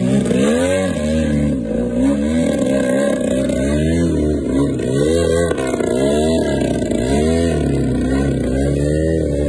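RC aerobatic plane's engine and propeller running hard to hold the plane hovering nose-up in a prop hang. The pitch wavers up and down about once a second as the plane turns and sways.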